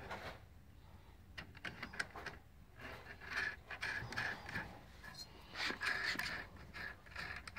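Hands handling metal misting-pump fittings: scattered light clicks and scrapes as the bulkhead assembly is refitted and its big outer nut threaded on by hand.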